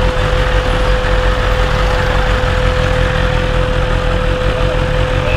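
BMW S1000RR inline-four engine running at low revs while the motorcycle creeps along at walking pace, with a steady one-note whine over the rumble.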